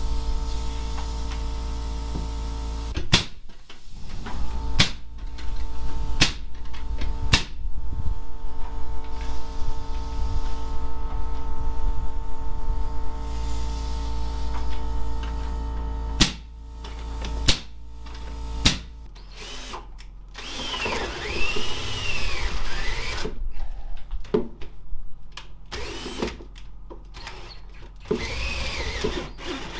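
A power tool or machine running steadily, punctuated by several sharp knocks; about two-thirds of the way through it stops and softer irregular working sounds follow.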